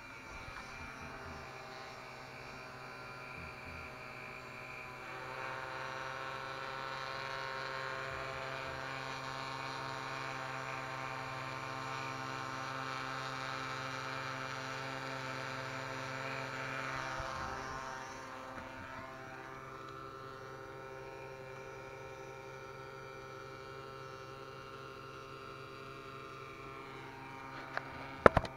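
Multirotor drone's electric motors and propellers humming steadily in flight. It grows louder about five seconds in, and the pitch shifts and the sound eases back down after about eighteen seconds. A few sharp knocks come just before the end.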